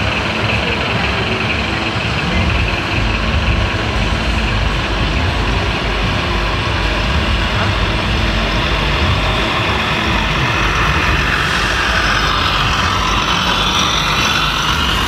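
An RC model truck's sound module plays a diesel truck engine, running steadily and evenly throughout.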